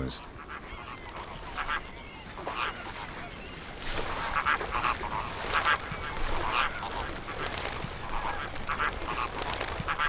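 A flock of American flamingos honking, many goose-like calls overlapping, growing busier and louder about four seconds in.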